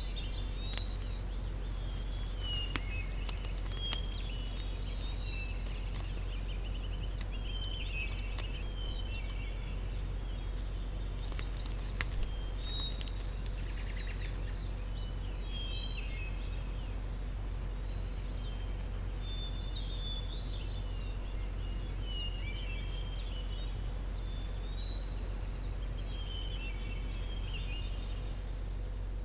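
Birds singing and chirping on and off in the background over a steady low rumble, with a couple of brief clicks.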